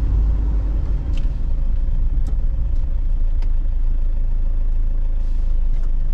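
Steady low engine and road rumble of a car driving, heard from inside the cabin, with a few faint clicks.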